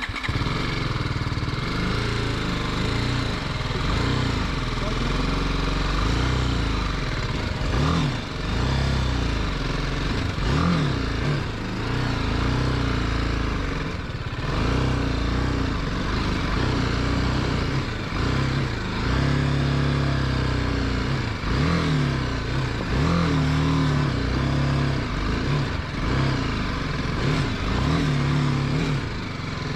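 Motorcycle engine running under changing throttle, its pitch rising and falling again and again as it is revved and eased off.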